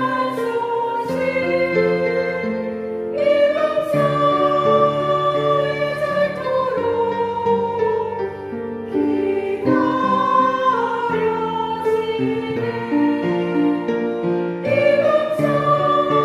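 Women's choir singing a Korean Buddhist hymn together, in phrases of a few seconds each.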